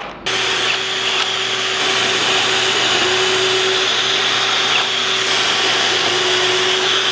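Shop vacuum running through the dust hose on a Kreg pocket-hole jig, switched on about a third of a second in, while a cordless drill bores a pocket hole in half-inch test stock. The drill's steady whine sits over the vacuum's even hiss.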